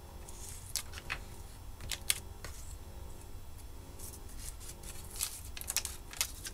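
A sheet of paper being pressed and scraped with a wooden stick on the workbench: irregular soft scratches, rustles and light clicks.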